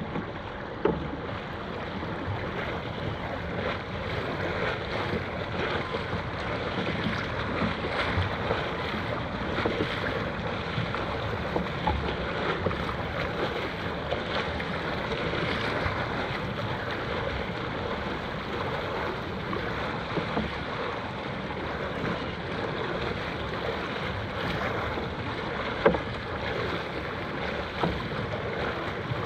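Water splashing and sloshing around a dragon boat, with wind noise on the microphone. Two brief sharp knocks stand out, about a second in and near the end.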